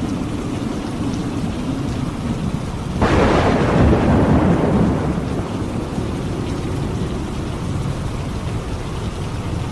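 Steady rain falling, with a thunderclap that breaks in suddenly about three seconds in, then rumbles and fades away over the next few seconds.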